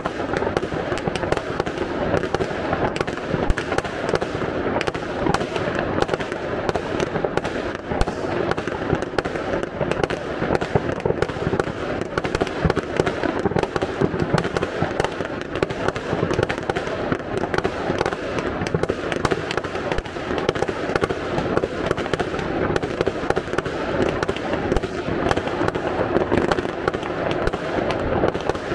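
Many fireworks and firecrackers going off at once in a dense, unbroken crackle of bangs and pops.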